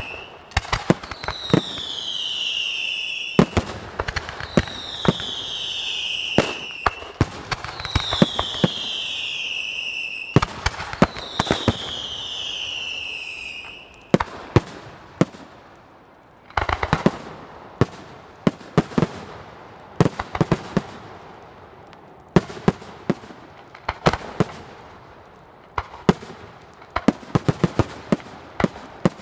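Fireworks going off: four whistling fireworks, each a long falling whistle about every three seconds, among rapid sharp bangs and crackling. About fourteen seconds in the whistles stop and scattered bangs and crackling carry on.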